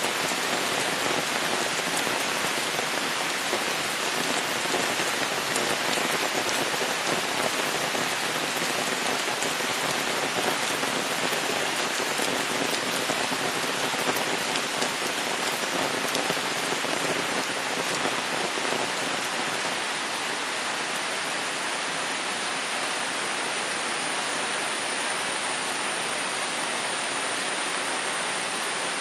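Steady rain falling, a dense even patter of drops. About two-thirds of the way through the patter turns smoother and a faint high steady tone joins it.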